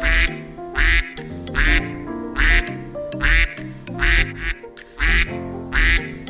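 Domestic duck quacking over and over: eight short, loud quacks, evenly spaced at a little more than one a second, over background music.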